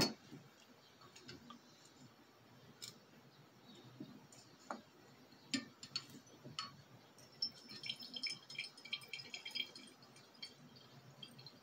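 Faint scattered glassy clicks, then, about seven seconds in, a quick run of high tinkling drips lasting a couple of seconds: liquid dripping from a separatory funnel's stopcock into a glass flask.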